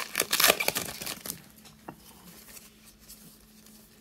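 Foil wrapper of a trading-card pack crinkling and tearing as it is ripped open. The rustling dies away after about a second, leaving a few faint ticks of the cards being handled.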